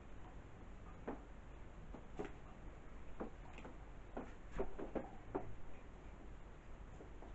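A few soft, irregular clicks and knocks in a quiet small room, with a quick cluster of them about halfway through.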